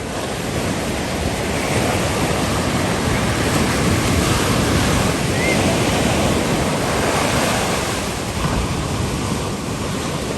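Ocean surf breaking and washing on the beach, a steady rush that swells and eases over several seconds, with wind buffeting the microphone.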